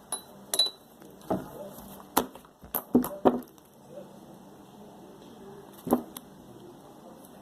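Homemade slime being stretched and pressed by hand, giving a string of uneven sharp clicks and pops, mostly in the first half.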